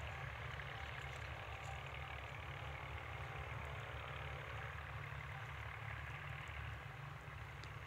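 A low, steady engine-like rumble, with a faint humming tone over roughly the first half that then fades out.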